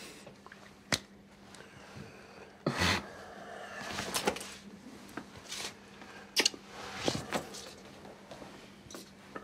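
Scattered rustles, clicks and soft thuds of people moving and handling each other at close quarters, over a faint steady low hum.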